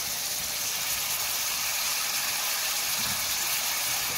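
Oil sizzling in a pan of frying pumpkin cubes, onions and freshly added tomato pieces: a steady frying hiss.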